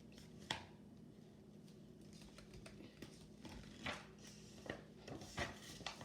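Faint handling of a picture book: a few soft taps and paper rustles, one early and a cluster in the last two seconds, over a faint steady hum.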